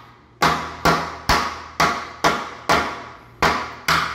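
Hammer striking the old door jamb over and over, about eight blows at a little over two a second, each ringing out briefly.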